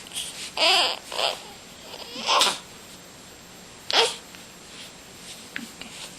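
A baby with the hiccups makes short, separate babbling sounds, several of them. The loudest come about a second in, halfway through, and a sharp one about four seconds in.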